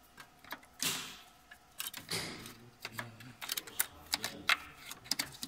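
Hand work among parts in an engine bay: a run of short, sharp clicks and knocks, with two brief scraping rustles about one and two seconds in.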